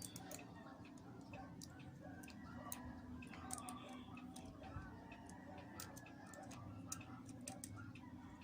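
Faint, irregular small clicks and taps of hand tools and small plastic and metal parts being handled while a GoPro Hero 4 Silver is taken apart for a lens replacement.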